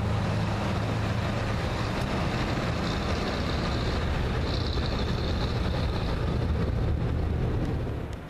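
Jet engines of a Gol Boeing 737-800 running on the ground with a steady low rumble, and a higher whine that swells in the middle. The noise drops to a quieter background about eight seconds in.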